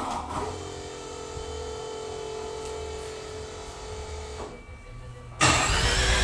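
A steady mechanical whirring hum, then about five seconds in the second-generation Mazda RX-7's rotary engine starts up, suddenly loud.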